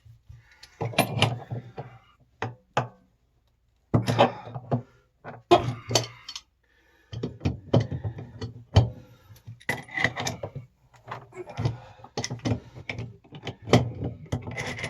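Irregular metal clanks and knocks of wrenches working on the lower heating element of an electric water heater, with a couple of short pauses.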